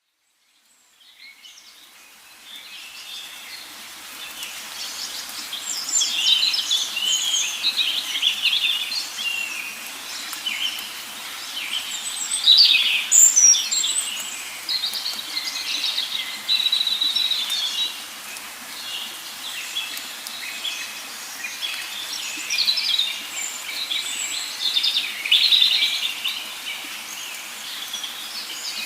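Parrot chirping and chattering in a busy run of short, high-pitched calls that fades in over the first two seconds and peaks about twelve seconds in.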